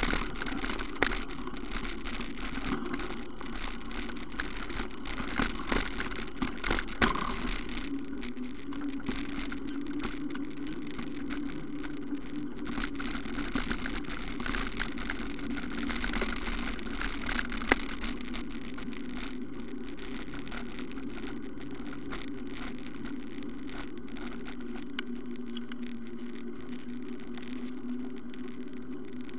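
Ride noise picked up by a bike-mounted camera: rattling and knocking as it jolts over rough ground for the first eight seconds or so, then a steadier rushing of tyres and wind on smooth asphalt.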